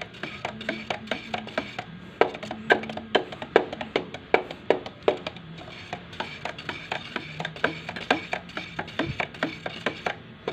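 A stirring stick knocking and scraping against the sides of a metal paint can while mixing epoxy primer, about three knocks a second, over background music.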